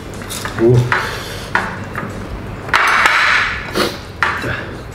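Metal spoons clinking and scraping on ceramic plates as people eat, in several short sharp clicks, with a louder rush of noise lasting about a second around three seconds in.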